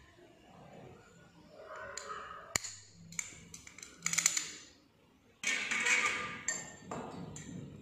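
Glass test tubes and a glass pipette clinking and knocking against each other in a test-tube rack: a sharp click about two and a half seconds in, then two short bursts of rattling, near the middle and again about six seconds in.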